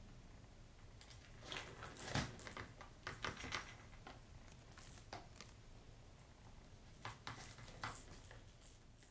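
A cat pawing at a circular plastic track-ball toy, the ball clattering and rattling around inside the plastic track. The clatter comes in two spells, about a second and a half in and again near the end.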